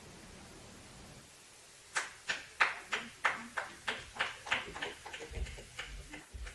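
Footsteps on a stage floor, about three sharp steps a second, starting about two seconds in and fading as the walker moves away.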